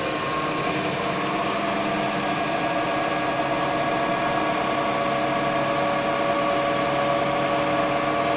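Viceroy TDS6 wood lathe, its original Hoover three-phase motor fed by an inverter drive, running steadily at full speed on the top pulley with the drive set at its maximum of 50 Hz: a steady motor hum with several steady tones.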